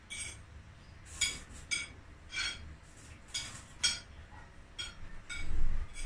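Spoon and fork clinking against a plate while eating, about nine light ringing clinks spread through. A low thump near the end is the loudest sound.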